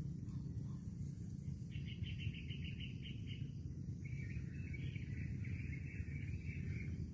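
Small birds calling over a steady low rumble: a fast trill of repeated notes about two seconds in, then a longer warbling phrase from about four seconds in.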